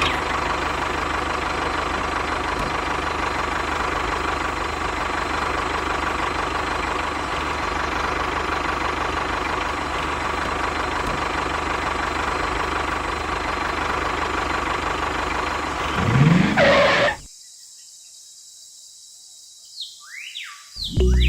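A small motor running steadily for about sixteen seconds, with a rising sweep at the end. Then the sound cuts off abruptly to a low hush for a few seconds.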